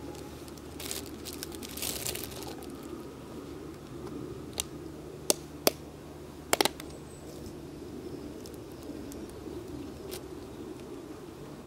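Thin plastic zip bag crinkling and rustling as it is opened, then a few sharp clicks and snaps as a plastic cream pot's lid is pried off.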